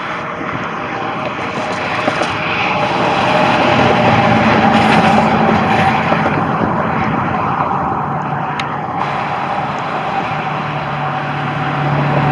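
Road traffic passing: a steady rush of vehicle noise that swells as a vehicle goes by about four to six seconds in and builds again near the end.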